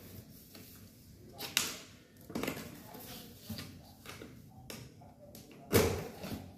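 Snap-on lid of a plastic food tub being worked open by hand: scattered clicks and knocks of hard plastic, the loudest near the end as the lid comes off.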